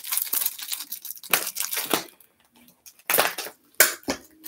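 Crunchy seaweed rice crackers being bitten and chewed: several sharp, separate crunches, with some rustling in the first second.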